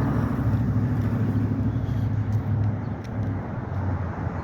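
Heavy construction machinery's diesel engine running steadily with a deep drone, easing a little about three seconds in.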